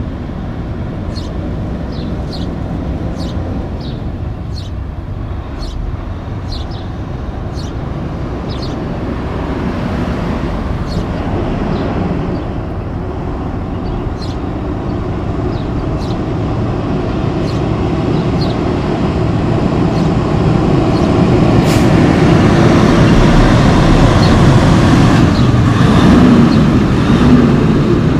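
Diesel semi truck pulling a B-train of pneumatic bulk tanker trailers moves off and approaches. Its engine rumble grows steadily louder until it passes close by. A brief sharp hiss comes about two-thirds of the way in, and short high chirps sound over the first half.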